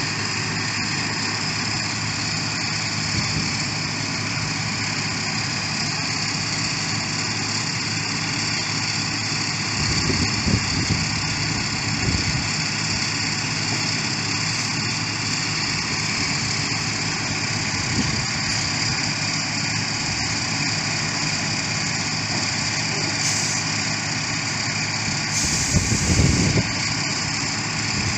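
Engine of heavy road-construction machinery running steadily, with a few brief low knocks about ten seconds in and again near the end.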